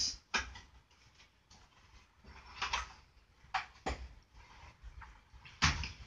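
A handful of light clicks and knocks, scattered a second or so apart, as wire connectors are handled and pushed back onto a furnace limit switch's terminals.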